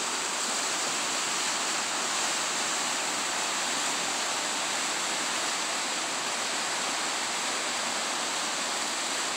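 River water rushing steadily over shallow rocky riffles, an even, unbroken rush.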